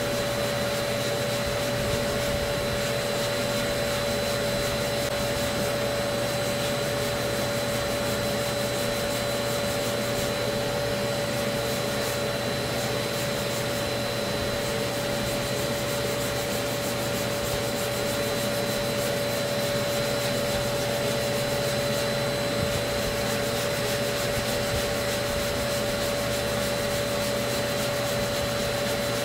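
Hand block sanding of body filler on a car's wheel arch: abrasive paper on a dust-extraction sanding block rubbing back and forth over the filler. Under it runs the steady whine of a dust extractor vacuum drawing through the block's hose.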